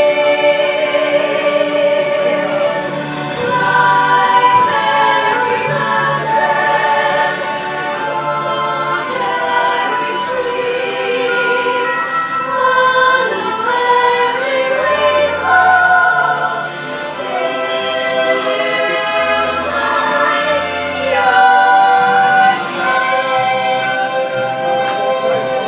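Choir singing a slow piece with long held chords.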